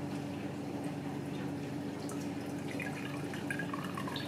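Cold-brew coffee trickling and dripping through a paper-towel-lined mesh sieve into a pitcher, the drips thickest in the second half, over a steady low hum.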